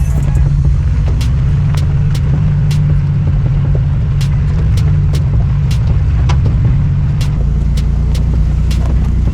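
Lifted 4x4 GMC Safari van's engine running at low speed as it crawls a rocky off-road trail, with scattered sharp clicks and knocks. Its low drone becomes steadier about seven seconds in.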